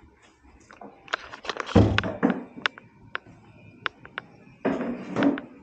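Indoor handling noises: a heavy thump about two seconds in, scattered sharp clicks and taps, and a short rustling burst near the end.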